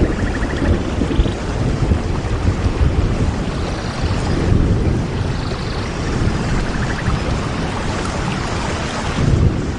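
Wind buffeting the microphone outdoors: a loud, uneven low rumble over a steady rush. A few faint, short high trills come and go over it.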